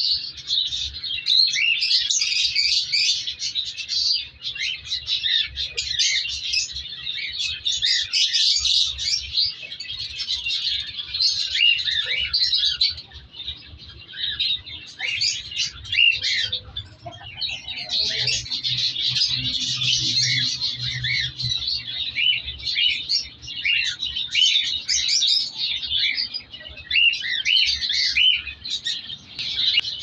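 Many cage birds chirping and chattering at once, a dense run of short, high, overlapping calls, with a brief lull about halfway through.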